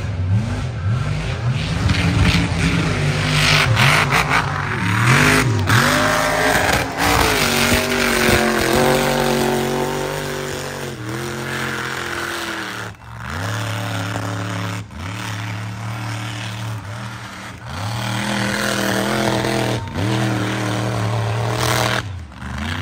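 Mega truck engine revving hard over and over. Its pitch climbs with each burst of throttle and drops back between bursts, louder in the first half.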